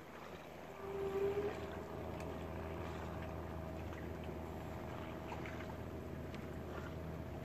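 A boat engine running steadily on the river, a low even hum with a thin higher tone over it, growing slightly louder about a second in.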